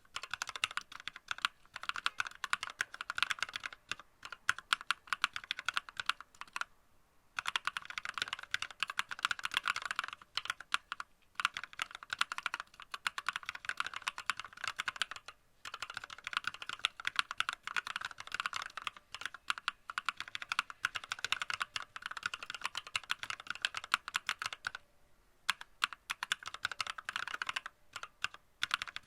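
Typing on a WENRUI WR63 mechanical keyboard with lubricated red linear switches and XDA-profile keycaps. It comes as fast, dense runs of keystrokes broken by short pauses about 7, 11, 15 and 25 seconds in. The lube has damped the metallic ringing of the switches.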